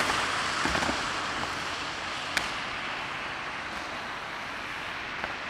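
Steady rushing outdoor noise on a camera microphone, with a few light knocks about a second in and one sharp click about two and a half seconds in.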